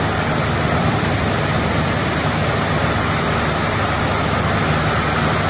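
Heavy rain pouring onto a paved street, a dense, steady hiss of drops splashing on the wet road.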